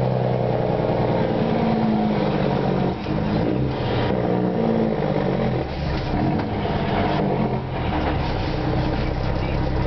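2005 Mack Granite roll-off truck's 335 hp diesel engine, exhausting through a 6-inch straight pipe with no muffler, running under load as the truck drives, heard from inside the cab. The engine note drops and climbs again, with brief dips in level about 3, 6 and 8 seconds in, as the 10-speed gearbox is shifted.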